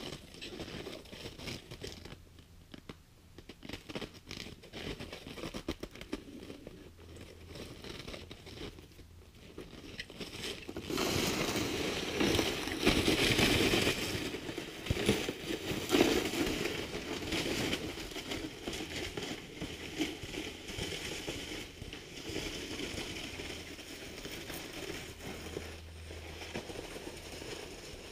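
Footsteps crunching in snow and a loaded sled scraping and hissing over the snow as it is dragged. The sound swells to its loudest a little before the middle, then fades as it moves away.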